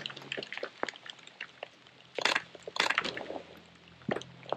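Rain spattering on the helmet camera's microphone: irregular ticks and crackles, with two louder hissing bursts about two and a half seconds in, over a faint steady low hum.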